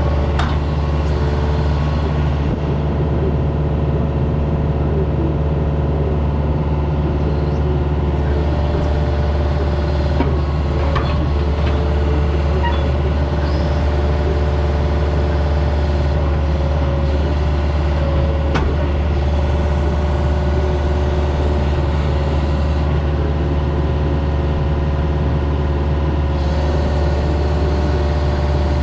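Diesel engine of a compact construction machine running steadily, with a few sharp knocks, one near the start, a couple around ten seconds in, and one more a little past halfway.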